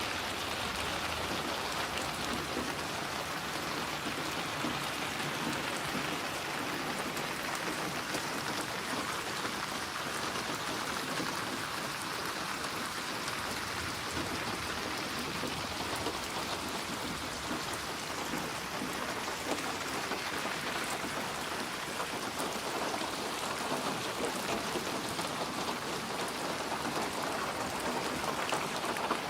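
Steady rain falling, with a dense patter of drops on a surface.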